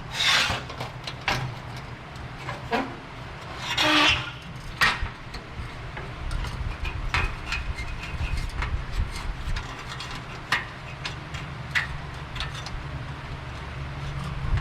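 Hands working a replacement lower windshield panel into place: scattered clicks and light knocks, with two longer scrapes, one right at the start and one about four seconds in, as the part is pushed and shifted and fails to seat, over a steady low hum.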